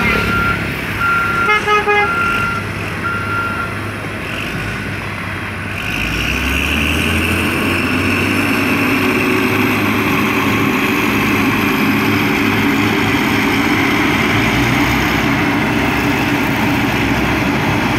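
Heavy road-construction machine with a reversing alarm beeping in the first few seconds, broken by a short horn toot about two seconds in. From about six seconds in, its diesel engine runs steadily and louder.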